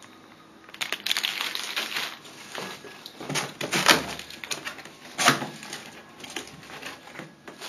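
Packaging being handled: a plastic bag rustling and hands moving over styrofoam packing inside a cardboard box, in irregular bursts of rustles and scrapes. The loudest knocks come about four and five seconds in.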